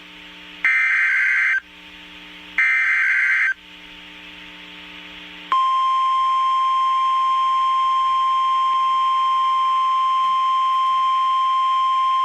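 NOAA Weather Radio emergency alert signal. First come two buzzy digital SAME header bursts, each about a second long and two seconds apart. About halfway in, the long, steady, single-pitch warning alarm tone starts, the signal that a warning broadcast (here a severe thunderstorm warning) follows.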